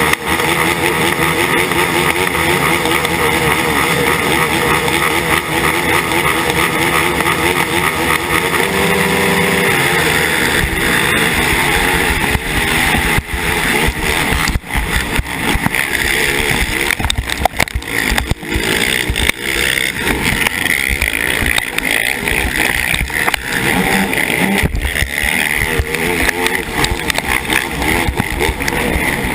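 KTM 450SX quad's single-cylinder four-stroke engine running hard under race throttle, picked up by a helmet camera together with other quads' engines and wind. The engine note wavers for about the first ten seconds, then turns rougher and noisier, with frequent knocks from the track.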